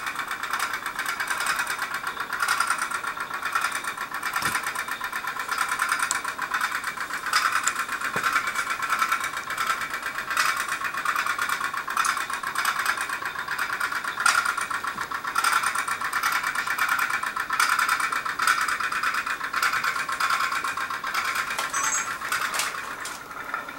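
Candle-powered tin pop-pop toy steam boat running, its engine making a fast, steady putt-putt of small pops as steam pulses push it through the water.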